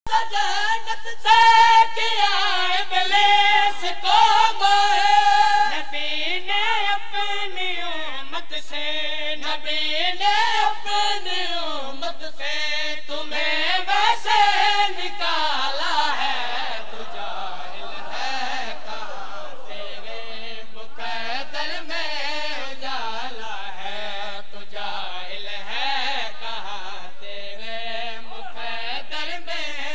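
A man's voice chanting a Shia mourning recitation, drawing out long notes that slide up and down in pitch in a melodic, sung style.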